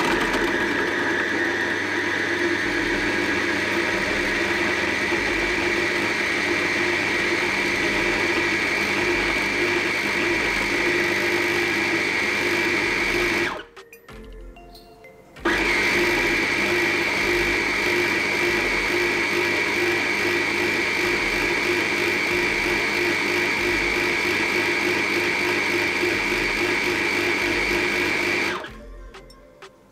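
Agu Baby 5-in-1 baby food processor's blender motor running, pureeing steamed fruit chunks: a steady whine for about 13 seconds, a pause of about two seconds, then a second run of about 13 seconds that stops near the end, as the machine works through its blending cycles.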